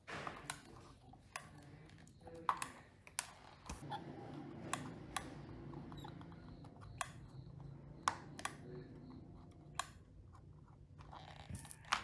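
Irregular sharp clicks and light taps, about a dozen spread unevenly through the stretch, over a faint steady low hum, like small metal parts and hand tools being handled at a workbench.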